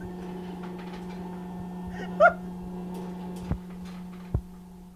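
Electric popcorn maker humming steadily. About two seconds in comes a short, high whine, and two sharp clicks follow near the end.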